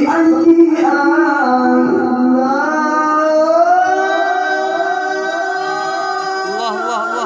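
A male reciter's amplified voice chanting the Qur'an in the melodic tilawah style. He holds long, slowly gliding notes and ends the phrase with a quick wavering ornament.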